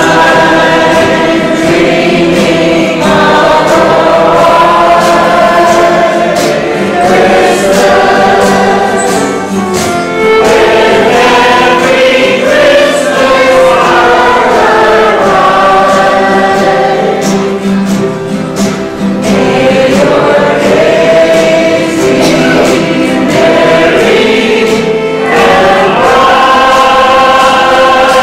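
A mixed choir of men and women singing a Christmas song together, accompanied by acoustic guitar, in phrases with short breaths between them.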